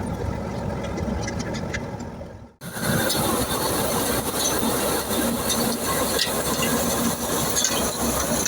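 A wheat thresher running steadily, a dense mechanical rattling din that cuts in about a third of the way through, after a fading stretch that drops briefly to near silence.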